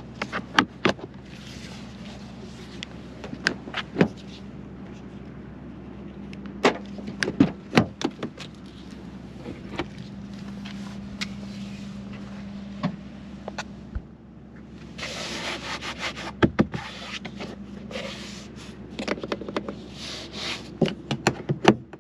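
Handling noises on a Polestar 2: a scattered series of sharp clicks and knocks with rubbing and scraping from its charge-port flap and rear door being worked, over a steady low hum.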